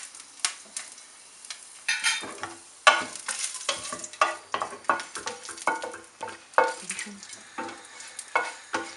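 Food frying in hot oil in a pan. A spatula stirs and scrapes against the pan in irregular strokes, roughly two a second.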